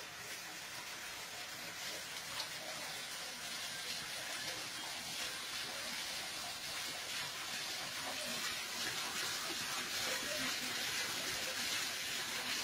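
Water rushing steadily through a narrow channel under wooden planks, growing slightly louder.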